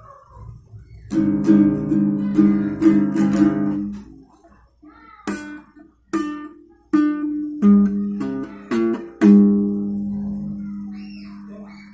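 A new guitalele's strings strummed: a quick run of strums, then single chords struck one at a time, the last left ringing and slowly fading. The instrument is fresh out of the box and not yet tuned.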